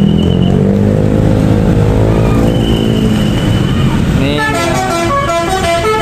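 Tour bus with a Basuri telolet multi-tone horn: under engine and motorcycle traffic noise, about four seconds in the horn starts playing a tune of quick stepped notes. A few short high whistle notes sound before it.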